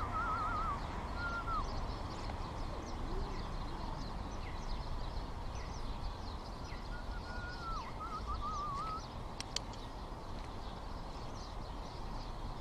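Winter city park ambience: a steady low background noise, with small birds chirping faintly throughout. Twice, near the start and again about eight seconds in, a bird gives a short wavering whistled phrase.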